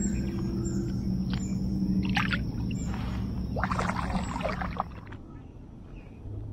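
Water splashing and sloshing at the side of a kayak, a short splash about two seconds in and a longer one just after the middle, over a steady low hum that stops near the end.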